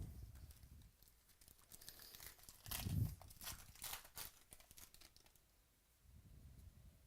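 Faint tearing and crinkling of a trading-card pack's foil wrapper as it is ripped open, with a run of sharp crackles and a soft thump about three seconds in.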